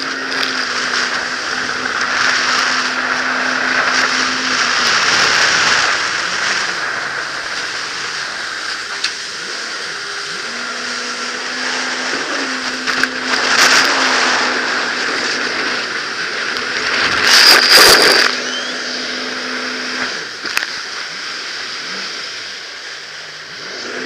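Yamaha VX Sport WaveRunner running at speed over choppy sea: a steady engine hum under a loud rush of wind and water spray on the camera. Two loud splashes crash over it, about halfway and about three-quarters of the way through.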